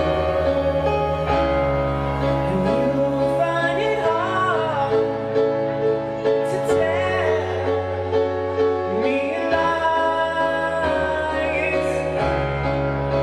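Live band music: an Alesis keyboard holds sustained chords over a low bass line that changes every couple of seconds, and a man sings several phrases over it.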